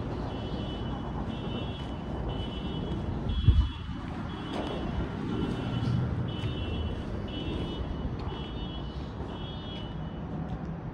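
A vehicle's reversing alarm beeping steadily about once a second over a continuous low traffic rumble, the beeping stopping shortly before the end. A single brief low thump about three and a half seconds in.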